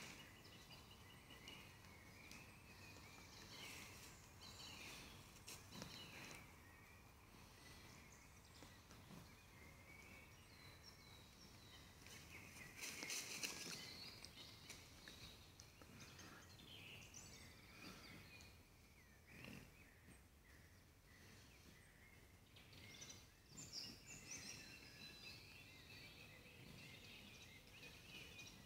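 Faint woodland birdsong: several small birds calling with short high whistles and trills, over a quiet background of forest noise. A brief louder burst of noise comes about halfway through.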